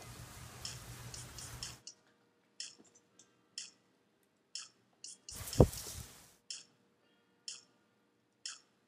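Regular ticking, about one tick a second, like a clock. A faint background hiss cuts out about two seconds in, and a single deep thump lands about five and a half seconds in.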